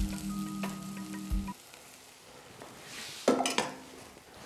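Hot pan sizzling over a steady low hum that cuts off suddenly about a second and a half in, leaving a fainter hiss. A brief clatter comes about three seconds in.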